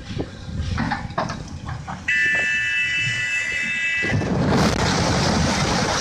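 Low rumble of a running excavator with a few knocks, then a high, steady warning horn sounds for about two seconds, starting about two seconds in. As the horn stops, a loud rushing noise takes over.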